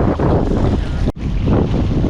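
Strong wind buffeting the microphone, a loud, uneven low rumble, which drops out for an instant about a second in.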